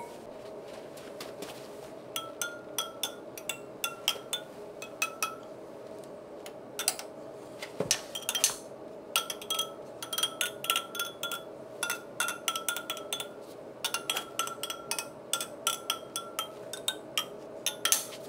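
Rapid light clinks and ticks, some with short ringing notes at the same pitch, over a steady hum.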